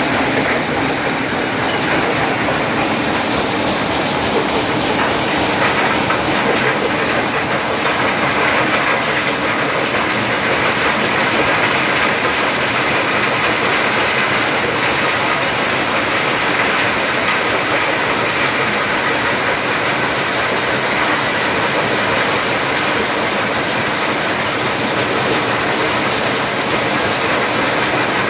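Stone crushing plant running, its belt-driven jaw crusher breaking rock while conveyor belts carry the stone: a steady, loud mechanical din with no pauses.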